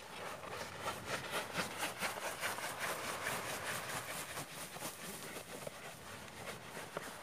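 Black foam sleeping mat being rolled up by hand: a fast run of crackling, rustling rubs, several a second, strongest in the first few seconds and thinning out, with a couple of sharp clicks near the end.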